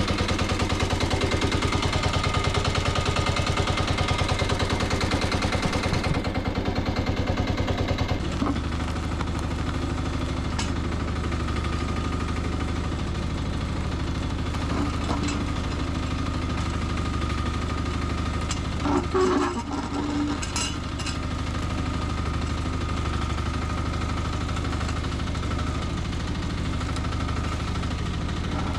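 Nuoman E10 1-ton mini excavator's engine running with a fast pulsing beat, then dropping to a lower, steadier idle about eight seconds in. A brief burst of clatter comes around twenty seconds in.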